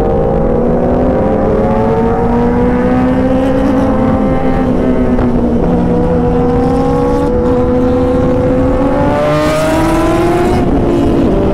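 Several superbike engines running hard at highway speed, heard from a rider's own bike with wind noise on the microphone; their pitches creep slowly upward as they accelerate. Near the end one engine rises sharply and then drops back.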